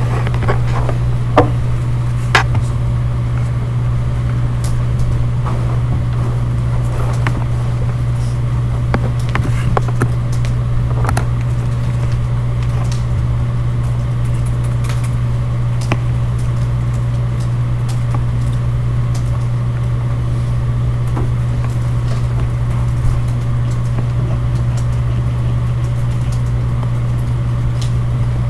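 A loud, steady low hum with scattered light clicks and taps, most of the clicks in the first few seconds.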